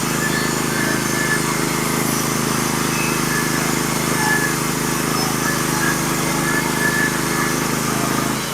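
Norwood HD36v2 portable bandsaw mill's gas engine running steadily through a cut in scarlet oak, dropping off right at the end as the throttle comes back. Faint bird chirps are heard over it.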